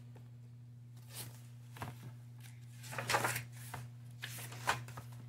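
Pages of a hardcover picture book being turned by hand: a handful of brief paper rustles, the loudest about three seconds in, over a low steady hum.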